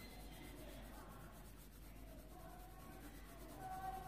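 Faint scratching of a coloured pencil shading on paper.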